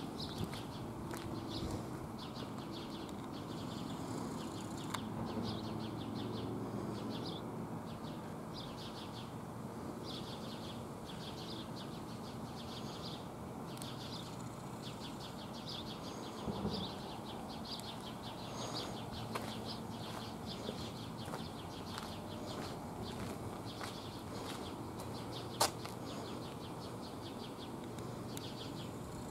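Small birds chirping in short rapid trills, repeated about once a second, over a steady low background rumble. A single sharp click sounds near the end.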